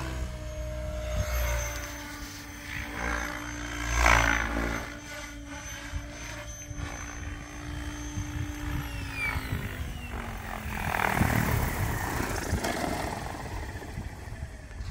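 Electric 700-size RC helicopter (SAB Raw Piuma on 12s with a Scorpion 4035-560KV motor) flying, a steady motor whine and rotor sound that slides down in pitch about nine seconds in, then a rush of rotor wash as it lands close by.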